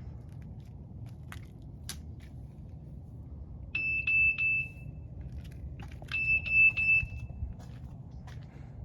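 Electronic beeping: two short bursts of a high beep, each a few pulses long, about two and a half seconds apart, over a steady low rumble.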